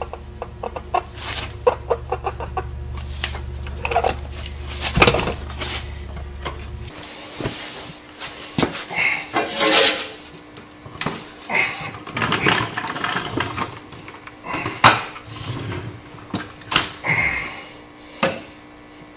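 Irregular metal clunks, clinks and scrapes as a 1963 Corvette's rear differential is lowered on a floor jack with a transmission stand and worked out from under the car. A low steady hum underneath cuts off about seven seconds in.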